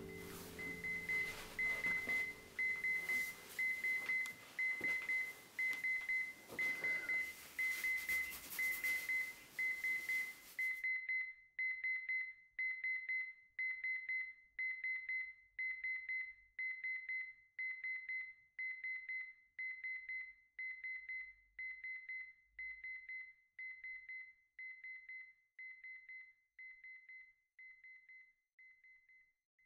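Electronic alarm clock beeping, a high-pitched beep about twice a second. A hiss underneath cuts off suddenly about a third of the way in, and the beeping then fades out gradually.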